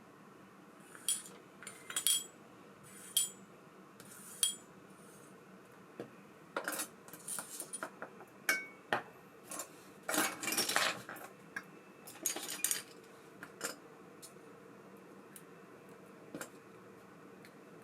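Small metal parts of a baitcasting reel clinking and tapping as they are handled: a few single clicks, then a busier run of clinks in the middle.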